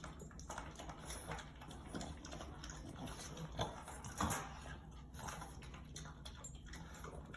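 French bulldog puppy eating raw food from a bowl: faint wet chewing, smacking and licking, with scattered short clicks.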